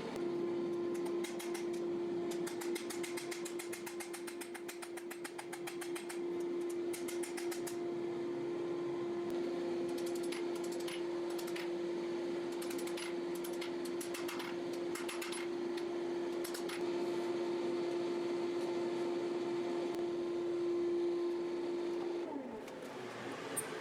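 A shop machine's electric motor runs with a steady hum and then winds down near the end, falling in pitch after it is switched off. Runs of rapid, even clicking come and go over the hum.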